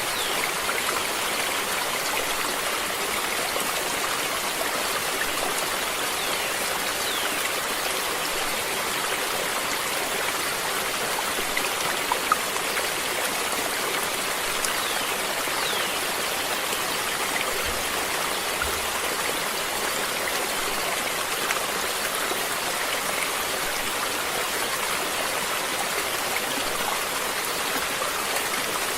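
Water flowing in a stream, a steady, even rush.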